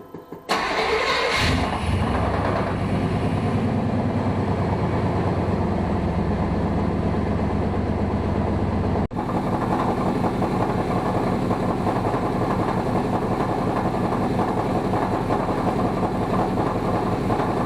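An engine or motor starts about half a second in and runs steadily with a fine, even pulse, broken briefly about nine seconds in.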